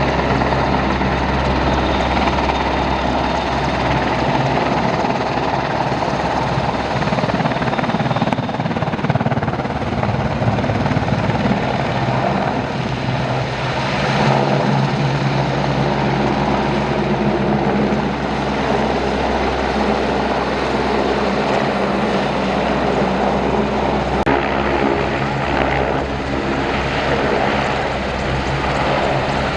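Aircraft engine running steadily: a continuous loud drone with a steady low hum.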